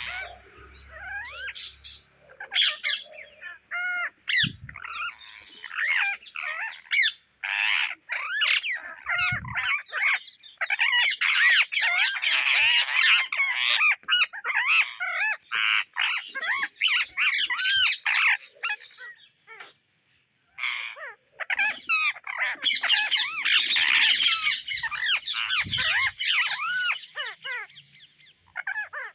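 Indian ringneck parrots chattering and squawking in a dense run of short, quick calls, with a brief pause about twenty seconds in.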